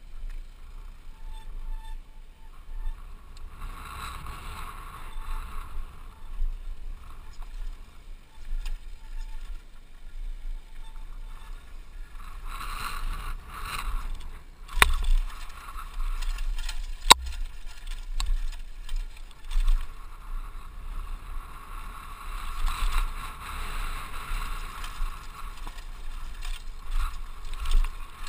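Wind on a helmet-mounted camera's microphone, with the tyre noise and rattle of a mountain bike riding fast down a dry dirt trail. Two sharp knocks stand out around the middle.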